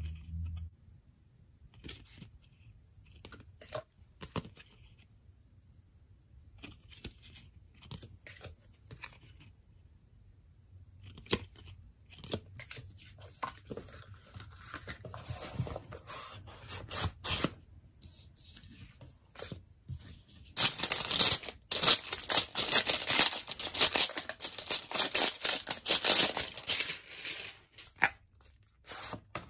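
Soft clicks, taps and rustles of photocards and album pages being handled. About two-thirds of the way through come several seconds of loud, dense tearing and crinkling, as the plastic shrink wrap is torn off a K-pop album.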